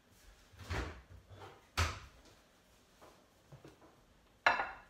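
Kitchen handling knocks: a sharp knock about two seconds in, and a louder, slightly ringing clack near the end as a white china plate is set down on a wooden chopping board.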